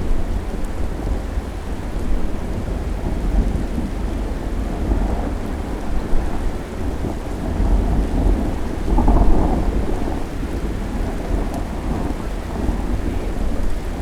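Thunderstorm: rolling thunder rumbling over steady rain, swelling loudest a little past the middle.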